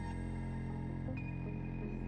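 Ambient background music: a sustained low drone under steady held tones, with a new high tone coming in about a second in.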